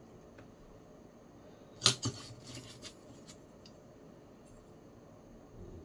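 A sharp metallic clack about two seconds in, then a few lighter clinks over the next second or so, as a flat steel wrench and small bicycle hub parts are handled on a workbench.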